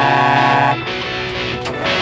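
Opening theme music: a long, loud sustained chord that cuts off about three-quarters of a second in, followed by a busier passage.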